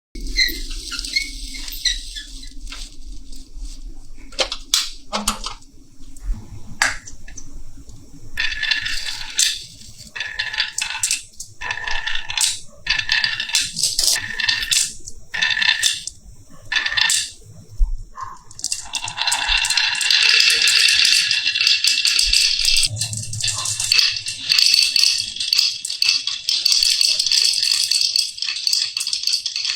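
Marbles rolling and clattering down a marble run: scattered clicks at first, then stop-start bursts of rattling, becoming a dense continuous rattle about two-thirds of the way through.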